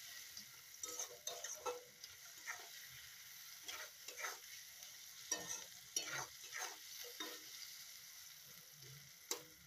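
Onions and tomatoes frying in oil in a metal wok with a faint steady sizzle, while a wooden spatula stirs and scrapes them in irregular strokes.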